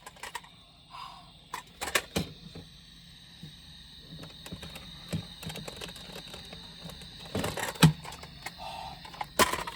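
Scattered light clicks and knocks, with a sharper knock about eight seconds in, over a faint steady high-pitched tone.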